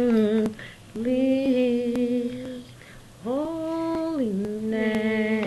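A female voice singing a gospel tune in long held notes without clear words, one phrase stepping up higher about three seconds in and dropping back a second later.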